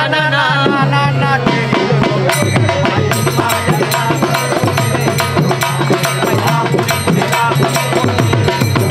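Folk music: a singing voice with wavering pitch for about the first second, then quick drum and percussion beats over a steady low drone.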